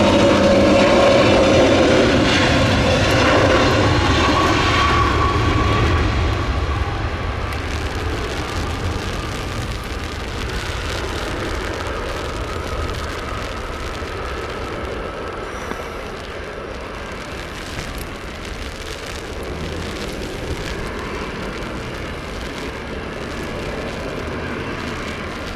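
Airliner engines, loud at first with steady whining tones, fading over the first several seconds into a steady distant rumble as the aircraft moves away.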